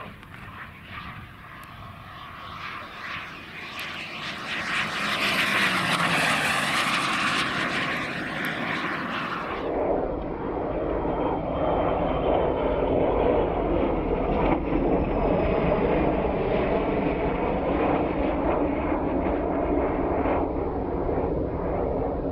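KingTech 140 turbine of a CARF Ultra Flash RC jet flying past close, its hiss and whine building to a peak with the pitch falling as it passes. About ten seconds in, the high hiss cuts off abruptly and a duller, low rumble runs on.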